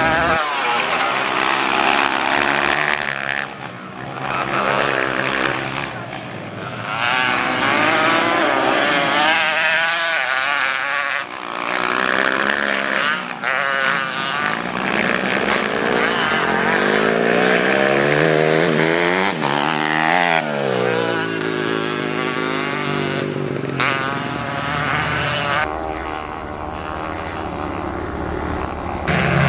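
Several off-road trail motorcycles revving hard on a dirt track, their engine notes rising and falling as they accelerate, shift and back off, overlapping one another; one bike sweeps past close by about twenty seconds in.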